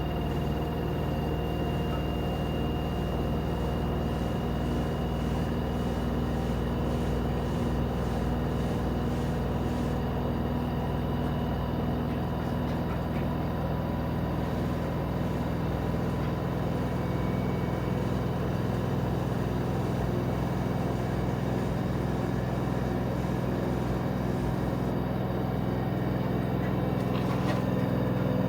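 LG 13 kg front-load washer-dryer in its spin cycle, the drum spinning at close to top speed (about 1250 RPM), giving a steady motor hum and whir with a faint high whine. It gets slightly louder near the end as the spin keeps building.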